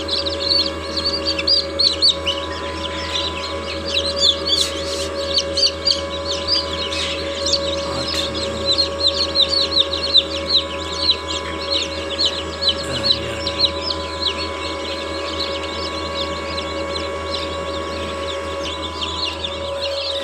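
A tray of newly hatched chicks peeping constantly, many high peeps overlapping, over the steady hum of the incubator.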